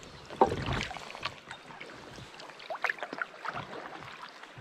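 Kayak paddle strokes, the blades dipping and splashing in shallow creek water, with a sharp knock about half a second in.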